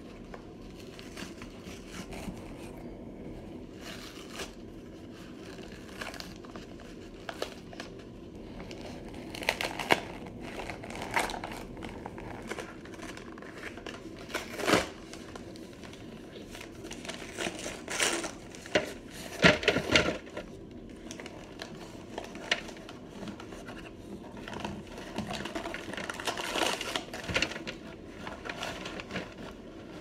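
Paper inner bag of a cornstarch box crinkling and rustling as it is handled and opened, with irregular crackles and sharp clicks and a louder cluster of them about two-thirds of the way through.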